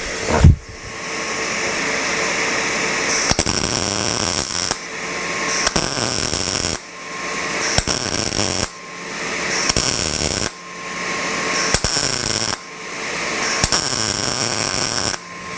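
MIG welder arc crackling and hissing as a plug weld is filled on thin-gauge steel sheet metal, the weld started in the centre of the drilled hole and run round in a circle. The welding runs in short stretches of about two seconds, with brief stops between them.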